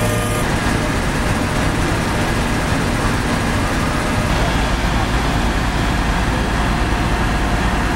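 Fire-service truck's diesel engine running steadily at the scene, a constant low drone that grows heavier about four seconds in.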